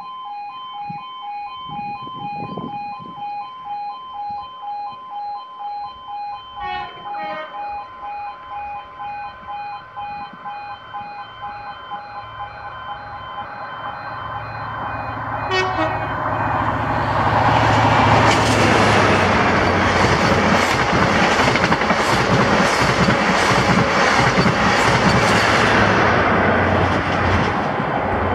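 A level crossing warning alarm pulses about twice a second while an LNER express passenger train approaches, sounding its horn twice. The train then passes at speed in a loud rush, its wheels clicking rapidly and regularly over the rail joints, and fades away near the end.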